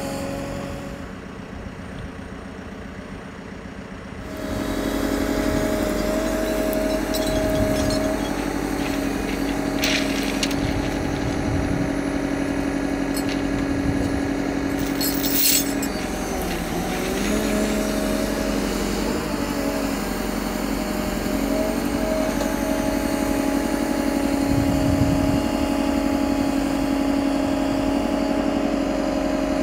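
Hydrema MX16 Rail excavator's diesel engine running steadily as the machine works. It gets louder about four seconds in, and its note dips and recovers briefly around the middle. A couple of sharp metallic clicks sound partway through.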